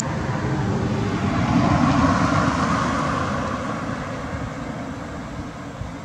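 Engine noise of something passing, a rumble with a hiss that swells to a peak about two seconds in and then slowly fades.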